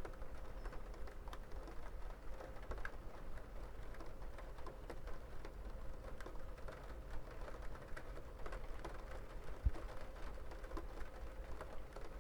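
Rain falling, with many irregular drop impacts ticking close by over a steady low rumble, and one duller knock about ten seconds in.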